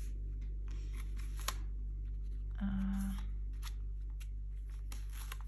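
Paper sticker-book pages and sticker sheets being handled and flipped: soft rustling with light ticks, one sharper tick about a second and a half in, over a steady low hum.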